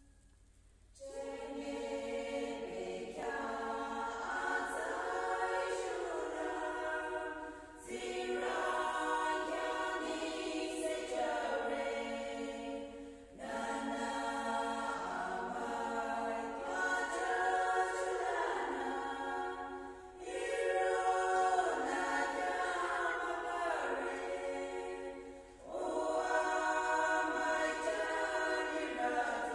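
A small women's choir singing a hymn without instruments, in long phrases broken by short breath pauses every five to seven seconds. The singing begins about a second in.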